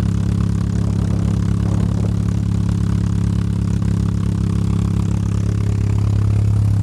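Freshly rebuilt Mazda 12A rotary engine, street-ported and breathing through a side-draft Mikuni carburettor, a Racing Beat header and a Flowmaster muffler, idling steadily with a regular pulsing exhaust note.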